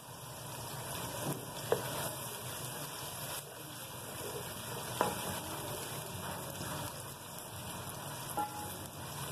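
Sliced onions frying in hot ghee in an aluminium pot, a steady sizzle, with a few light knocks as a wooden spatula stirs them against the pot.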